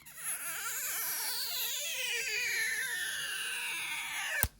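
A sound effect laid over the video: a wavering wail that slides slowly downward in pitch for about four and a half seconds, then ends with a sharp click and stops suddenly.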